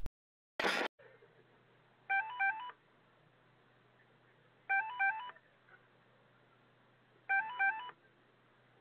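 Apartment door-intercom (domofon) call signal: a short stepped, rising sequence of electronic tones, sounding three times about two and a half seconds apart, over a steady low electrical hum. A brief loud noise comes just under a second in.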